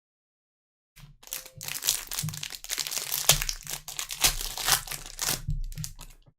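Trading-card pack wrappers crinkling and tearing as packs are opened by hand. It starts about a second in after a silent moment, with irregular sharp crackles.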